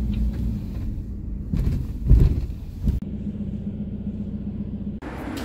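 Steady low rumble of a moving vehicle, with a louder swell about two seconds in and abrupt changes twice, near the middle and near the end.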